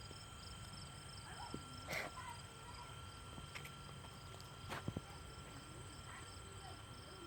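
Field crickets and other insects chirping in a steady pulsing trill, with a few faint clicks and knocks.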